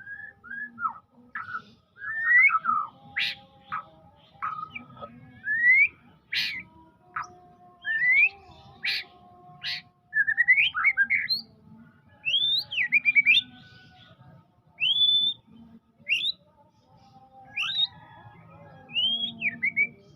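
White-rumped shama (murai batu) singing a varied run of whistled phrases: rising and falling sweeps mixed with sharp, clipped notes, delivered in bursts with short pauses between them.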